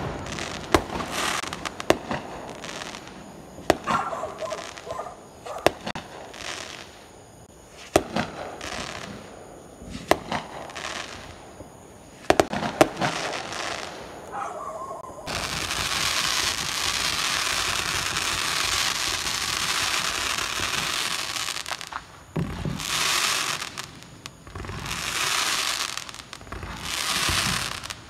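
Fireworks going off: a string of sharp bangs a second or two apart, then a steady hiss lasting about seven seconds from about halfway through, followed by three shorter bursts of hiss.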